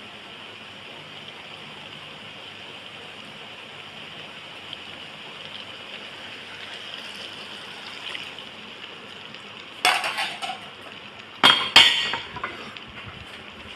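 Spaghetti and minced meat sizzling steadily in a stainless steel pan, with metal tongs clattering against the pan in two short bursts near the end.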